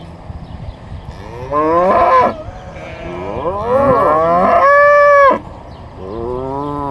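A cow mooing three times: a short call about a second and a half in, a longer one that ends on a steady held note about five seconds in, and a third starting near the end.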